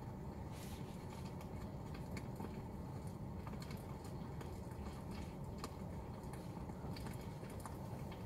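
Crackling campfire sound effect from a Tesla's campfire mode, played in the car: scattered pops and crackles over a steady low rumble.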